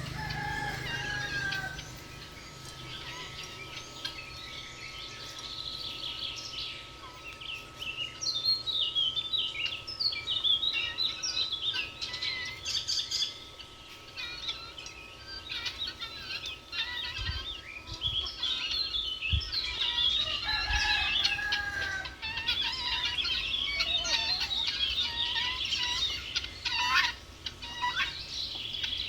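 Small birds chirp and trill busily throughout, over farmyard chickens. A drawn-out, slightly falling chicken call sounds twice, once at the very start and again about two-thirds of the way through.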